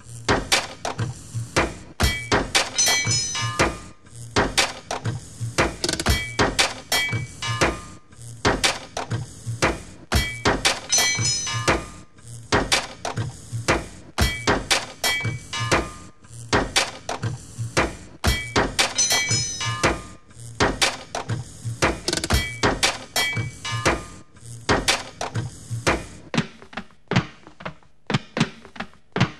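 Rhythmic sound collage of metal clanks, knocks and thuds sampled at a car scrapyard, looped into a beat that repeats about every four seconds, with short ringing metallic tones. Near the end it thins to sparser, quieter knocks.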